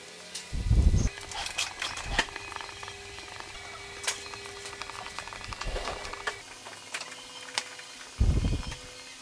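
Small steel screws clicking and a hand screwdriver turning them into aluminium blocks through an acrylic plate, with scattered handling clicks. Two loud dull thumps come about a second in and near the end.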